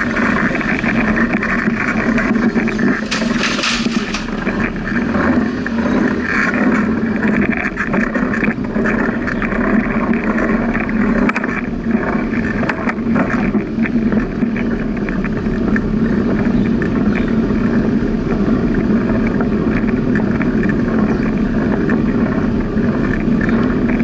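Steady wind and road noise from a bicycle being ridden, picked up by the camera's microphone, with a brief rise in hiss about three seconds in.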